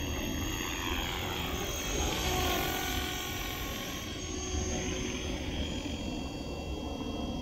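Align T-Rex 450 SE V2 electric RC helicopter in flight: a steady whine from its motor and gears over the whoosh of the rotor blades, the pitch bending as it passes close, loudest around two to three seconds in.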